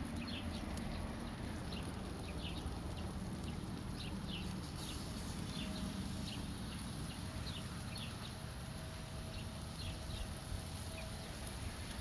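Birds chirping outdoors, short falling chirps repeating about once a second, over a steady low rumble.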